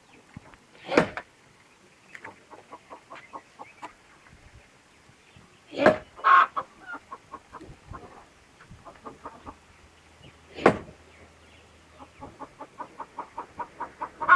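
Axe chopping into a log to split firewood: three heavy strikes about five seconds apart. Between the strikes a hen clucks in quick runs of short notes.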